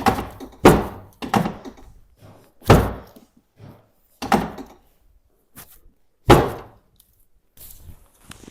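Chiropractic adjustment on a treatment table: about half a dozen sharp thuds at uneven intervals.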